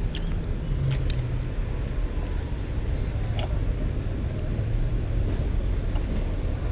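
Steady low rumble of road traffic, with a couple of faint short clicks.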